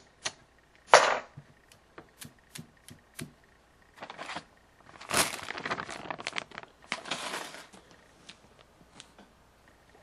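Desk handling noises: scattered sharp clicks and taps with a louder thump about a second in, and several short stretches of rustling between about four and eight seconds in.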